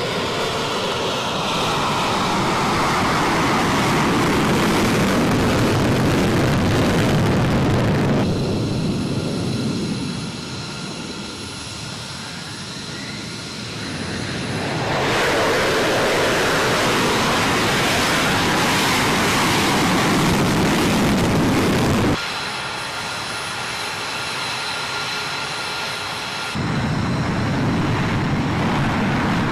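Military fighter jet engines running loud, in several abruptly changing stretches. Some stretches are a steady high whine and others a fuller rush of jet noise.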